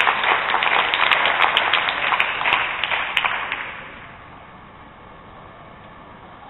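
Audience applauding, the clapping fading out about three and a half seconds in, leaving quiet room noise.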